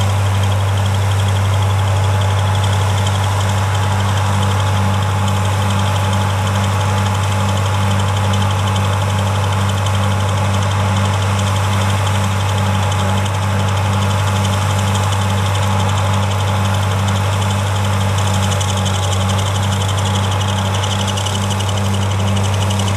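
White 2-135 Field Boss tractor's Perkins V8 diesel engine running steadily at low speed with an even, regular throb as the tractor moves slowly.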